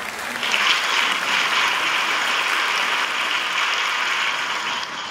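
Crowd applause, steady dense clapping that fades out near the end: a stock applause sound effect.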